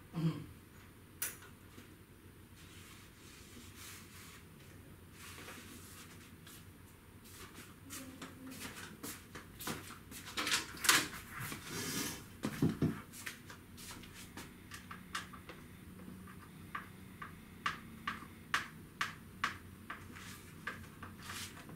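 Handling noises: rustles, knocks and clicks as a laptop and loose items are moved about on a table, with a run of sharp light clicks about two a second in the last third.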